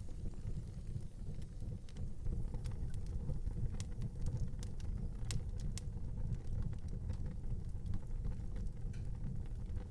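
Wood fire burning in an outdoor fireplace: a steady low rumble of the flames with scattered sharp crackles and pops, most of them in the middle of the stretch.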